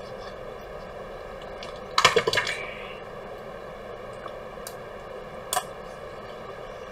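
Small metal tools and screws clicking and clattering against the MacBook Air's logic board and the bench during disassembly: a short rattle of several clicks about two seconds in, light ticks, then one sharp click about five and a half seconds in, over a steady background hum.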